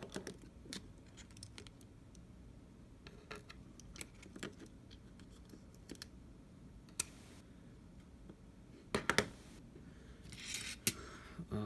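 Small repair tools clicking and scraping on the opened iPhone 7's internal parts: scattered light ticks, with a tighter cluster of clicks about nine seconds in and a short scratchy rustle near the end.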